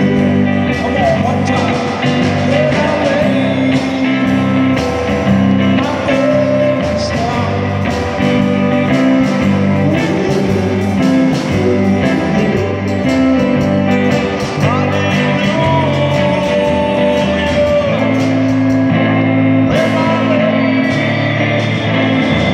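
A man singing into a microphone while accompanying himself on an amplified electric guitar.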